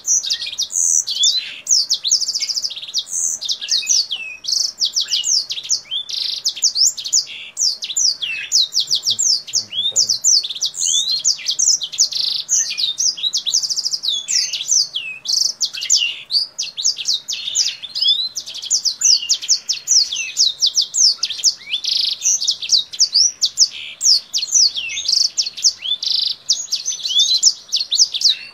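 A caged kingthroat singing hard and without a break: a fast, high run of chirps, trills and quick sweeping whistles, in a song like a black-throated canary's.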